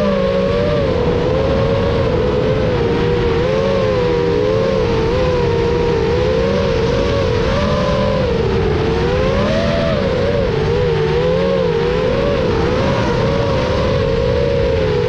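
FPV quadcopter's motors and propellers whining. Several close tones rise and fall in pitch constantly as the throttle changes.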